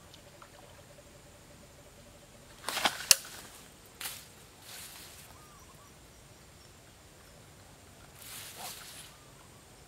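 Handling of a fishing rod and line at the water's edge: a cluster of rustling noise with one sharp click about three seconds in, the loudest sound, then a short sudden knock about four seconds in and softer rustles near five and eight seconds in.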